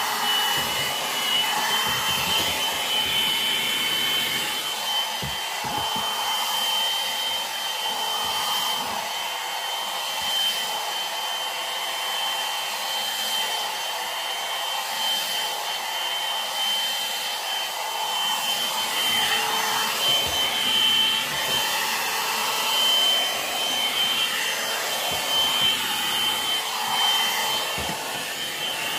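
Hot air brush (one-step hair dryer and styler) running steadily, its fan blowing with a steady high whine over the rush of air, as it is worked through hair to dry and straighten it.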